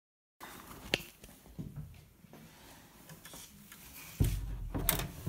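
Faint scattered clicks and knocks in a small room: one sharp click about a second in, then a louder dull thump near the end.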